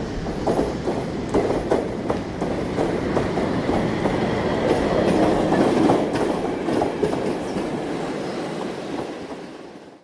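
Passenger train passing along the line: a steady rumble of the coaches with the clickety-clack of wheels over rail joints, growing fainter over the last couple of seconds.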